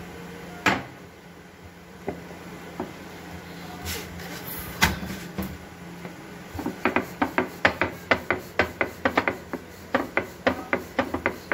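A rolling pin rolling out roti dough on a board: a couple of separate knocks, then a fast run of sharp clacks, several a second, with a short break, as the pin is worked back and forth.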